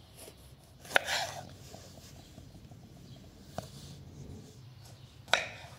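Kitchen knife cutting limes on a wooden cutting board: two sharp chops of the blade onto the board, about a second in and near the end, each followed by a brief slicing rustle, with a lighter tap in between.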